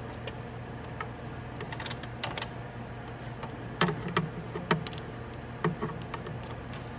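Light metallic clinks and taps as a steel motorcycle front sprocket and chain are handled at the output shaft. The clicks come in small clusters, about two seconds in and again between four and six seconds, over a steady low hum.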